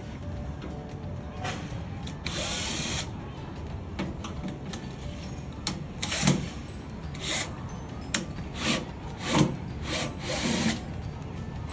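Cordless drill-driver running in short bursts on the screws of a tankless water heater's casing: one longer run about two seconds in, then a quick series of short spins in the second half.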